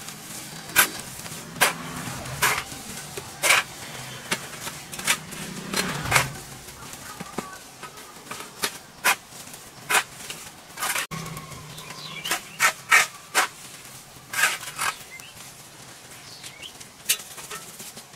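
Branches and foliage being cut or broken by hand: a run of sharp cracks or chops at an uneven pace, roughly one a second and sometimes two in quick succession, with leaves and twigs rustling between them.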